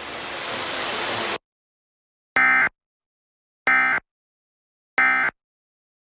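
Static hiss that cuts off abruptly, then three short, identical buzzy digital bursts about 1.3 seconds apart: the Emergency Alert System's end-of-message data tones, which close an EAS alert.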